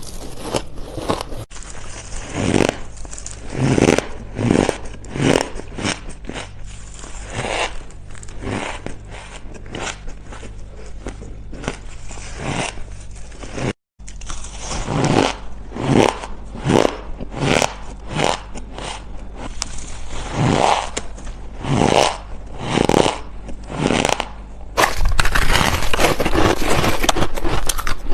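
Ice being bitten and chewed close to the microphone: a run of crisp, crunching bites, one or two a second, with a brief break about halfway and a denser, louder stretch of crunching near the end.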